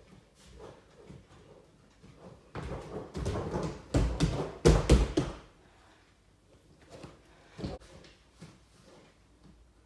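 Bare hands and feet thumping on an inflatable air track mat during a tumbling skill: a few soft steps, then a loud cluster of dull thuds in the middle as hands and feet strike and land, and one more single thud a little later.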